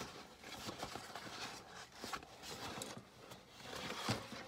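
Rustling and light scraping as pink rose wall decorations are handled and pulled from a bag, with small ticks and one sharper click near the end.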